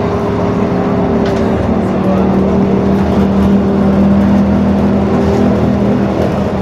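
Interior sound of a LiAZ-52803 trolleybus underway: a steady electric hum over road and tyre noise, getting a little louder around the middle.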